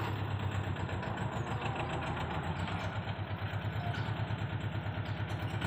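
Mini tractor loader's small diesel engine running steadily, with a fast, even pulse.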